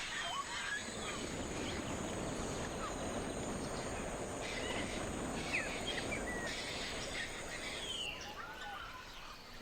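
Forest ambience: scattered short bird chirps and calls over a steady hiss, with a thin high-pitched whine that stops about eight seconds in.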